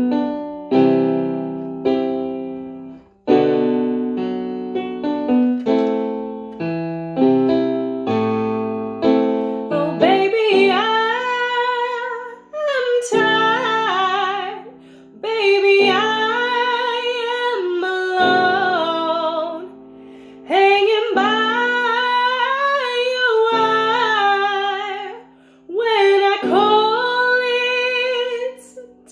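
Piano playing a run of struck chords for about ten seconds, then a woman singing long held phrases with a wavering pitch over the piano accompaniment, pausing briefly between phrases.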